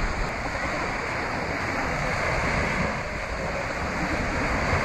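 Small sea waves breaking and washing up on a sandy shore, a steady wash of surf.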